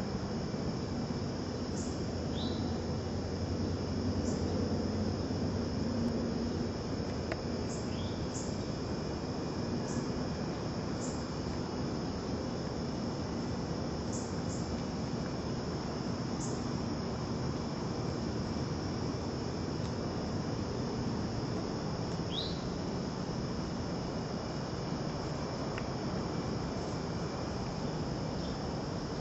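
Steady chorus of insects, a constant high-pitched trill over a background hiss, with scattered short faint chirps.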